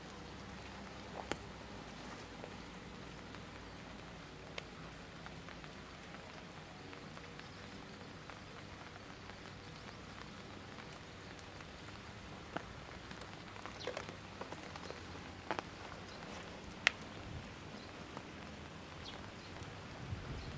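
Steady outdoor background hiss with scattered small ticks and taps, which come more often in the second half.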